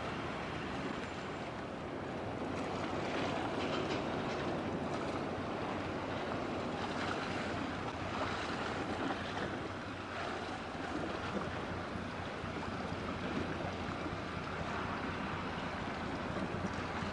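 Steady rushing of wind on the microphone mixed with the wash of sea water, with no distinct events.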